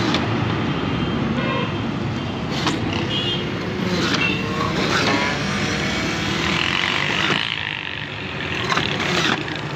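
Steady street traffic noise, with cars, motorbikes and trucks passing close by.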